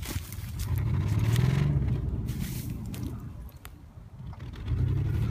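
GMC Jimmy SUV's engine revving under load as it claws up a sandy hill, its wheels spinning and digging into the sand. The engine rises about a second in, drops away past the middle, then revs up again near the end.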